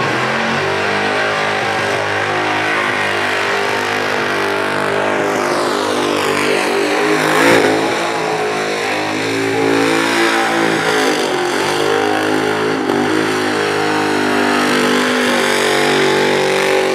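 Burnout car's engine held at high revs while its rear tyres spin in place, the engine note dipping and climbing again as the throttle is worked, loudest about halfway through.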